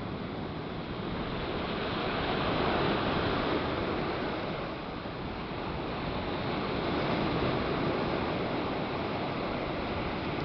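Surf breaking and washing up a pebble beach, a steady rush that swells twice as waves come in.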